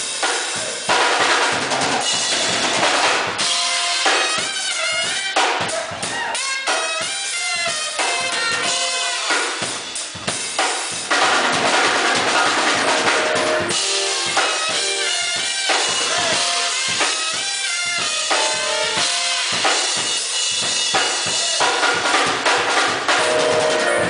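Live band playing: a drum kit driving a steady beat with bass drum and snare, under saxophone and trumpet lines.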